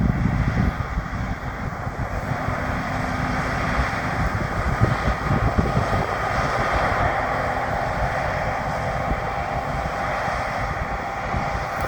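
John Deere combine harvester running steadily while cutting winter wheat, a continuous machine drone with a faint steady whine over it.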